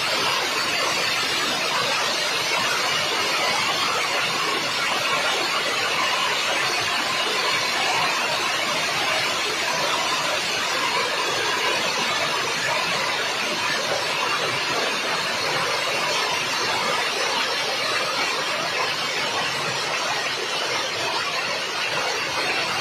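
Hailstorm: hailstones falling steadily and hitting the ground, countless small impacts merging into a dense, even hiss.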